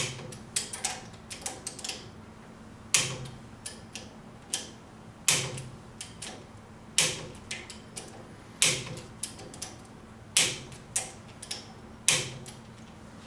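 Click-type torque wrench working the jack bolts on the seal head of a K-Series waterjet pump. A sharp click comes about every one and a half to two seconds, each followed by a few lighter ratchet ticks, as the bolts are brought to final torque in turn.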